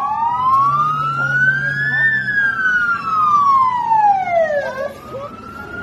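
Wailing siren of a passing armoured police Land Rover: one slow rise in pitch over about two seconds, a longer fall over the next three, then a new rise starting near the end. A low engine hum runs underneath for the first few seconds.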